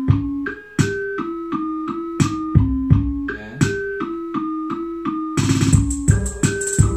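Keyboard instrumental music played through tower speakers with an active subwoofer switched on: a repeating electric-piano melody of short stepped notes over a bass line, with percussion and a shaker joining about five seconds in.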